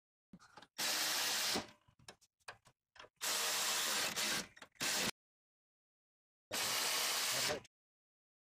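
Milwaukee M12 Fuel 3/8-inch cordless ratchet running in four short bursts, driving in the hood latch bolts, with small clicks of the tool and bolts between the runs.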